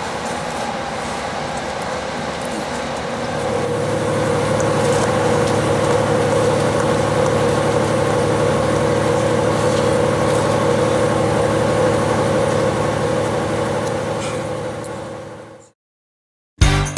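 Train engine running steadily, heard from inside the passenger carriage; it grows louder about three seconds in, holds, then fades away near the end.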